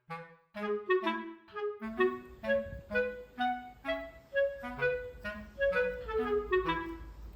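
Background music: a light melody of short, detached notes at a steady pace. A low steady rumble joins under it about two seconds in.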